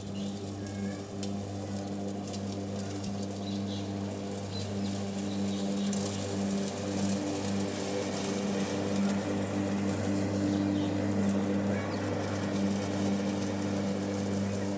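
Electric lawn mower's 1600-watt motor running with a steady hum, growing a little louder about five seconds in.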